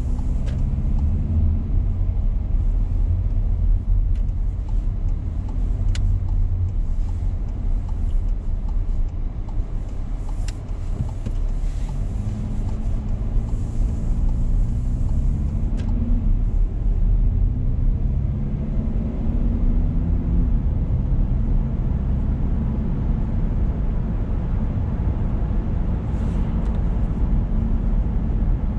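A car being driven: a steady low rumble of engine and road noise, with the engine note rising and falling as the car speeds up and slows. A few sharp clicks sound over it.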